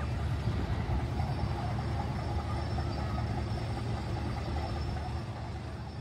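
Motor yacht engines running at low speed as the boat manoeuvres: a steady low rumble.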